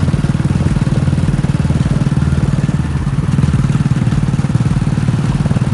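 Hero Splendor motorcycle's single-cylinder four-stroke engine running steadily while the bike is ridden, its exhaust pulsing evenly.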